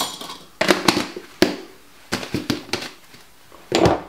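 Seasoning jars and kitchen utensils being handled on a worktop: a run of sharp knocks and clinks, a few with a short ring.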